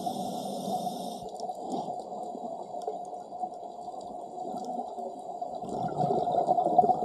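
Underwater ambience through a camera housing: a scuba diver's regulator breathing, with a brief hiss in the first second and bubbling from the exhaled breath that grows louder near the end.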